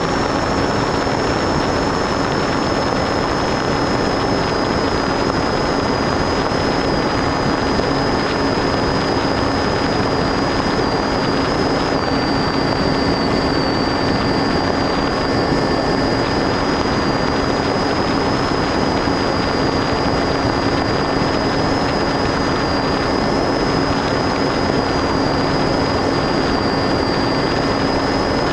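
Onboard audio from an FPV model aircraft: the electric motor and propeller drone steadily under a rush of wind noise, with a thin constant high whine above it.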